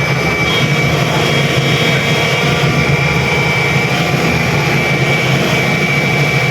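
Backhoe's diesel engine running steadily, with a thin, steady high whine over the low rumble.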